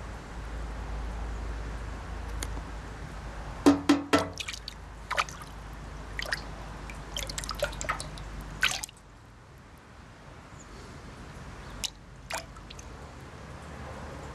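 Pond fish, crucian carp among them, splashing in a shallow tub of water: a quick run of sharp splashes and drips about four seconds in, scattered ones over the next few seconds, and a couple more near the end.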